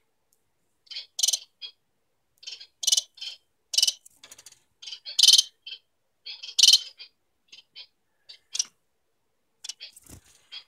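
Society finch giving short, high chirping calls in quick clusters of two to four, with brief pauses between the clusters.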